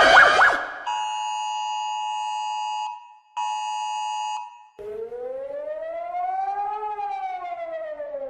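Emergency Alert System attention signal: a steady two-tone alert in two blasts, about two seconds and then about one, with a short break. It is followed about five seconds in by a siren tone that rises slowly and then falls, like a civil defense siren wail.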